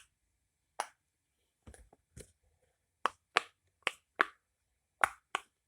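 Silicone pop-it fidget toy being pressed, its bubbles giving about nine short, sharp pops at uneven intervals.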